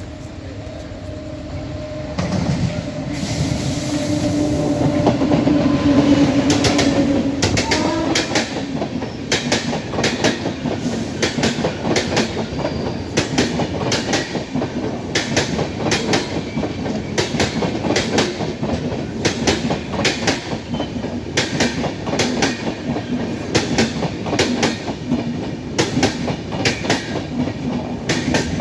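Indian passenger express train passing at speed. The locomotive goes by first, loudest about six seconds in, then the coaches follow with a steady rhythmic clickety-clack of wheels over rail joints.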